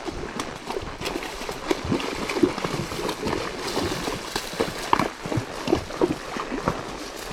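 Two horses walking through shallow water, their hooves splashing in an irregular run of splashes and thuds.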